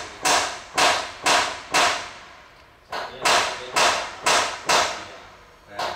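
Hammer blows during interior refitting work, struck about twice a second in runs of four with a pause of about a second between runs, each blow loud, sharp and echoing briefly.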